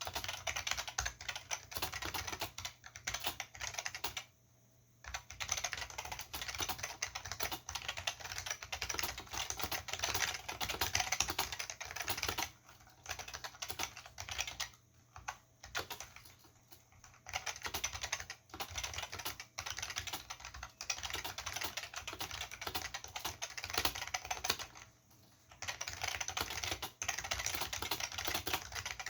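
Typing on an Olivetti M15 keyboard with Futaba MA mechanical switches and PBT dye-sub keycaps: a fast, continuous clatter of keystrokes. It stops for short pauses about four seconds in, several times around the middle, and once near the end.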